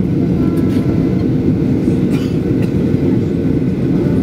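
Steady low rumble of engine and rushing air inside the cabin of a Boeing 737-900ER, beside its CFM56-7B turbofan, on landing approach.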